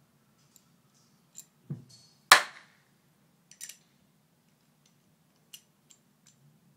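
AR-15 rifle parts being handled during a field strip: scattered light metal clicks, a dull knock, then one loud sharp metal clank a little over two seconds in that rings briefly.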